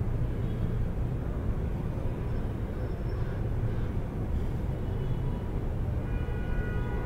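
Outdoor city background: a steady low rumble, with a few faint high steady tones near the end.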